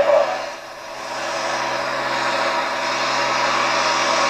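Engine of a modified pulling tractor running hard under load as it drags the sled, a dense steady noise that dips briefly about half a second in, then swells back and holds steady.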